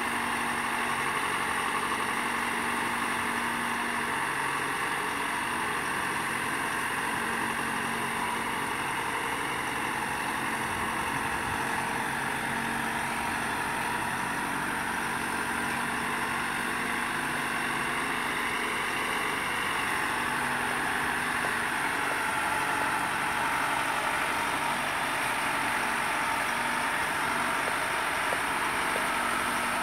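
The engine of a boat travel lift (mobile gantry hoist) running steadily with a constant hum while the hoist holds a fishing boat in its slings.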